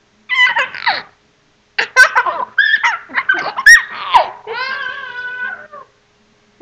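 Young child laughing and squealing in short high-pitched bursts, with a longer drawn-out vocal sound near the end.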